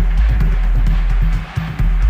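Electronic dance music with a heavy, regular bass beat. The bass drops out briefly about one and a half seconds in.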